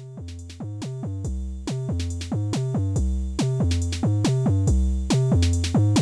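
Background music with a steady drum beat and bass notes. It starts abruptly and builds in loudness.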